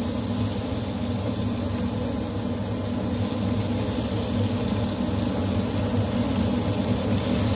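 Steady rushing noise over a constant low hum, with no change through the whole stretch.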